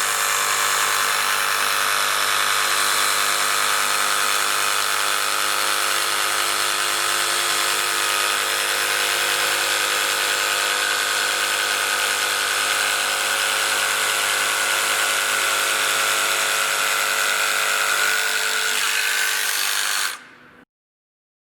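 Electric jigsaw running steadily while its blade saws through a perspex (acrylic) sheet, using a blade that is the wrong type for perspex. The steady buzz stops suddenly near the end.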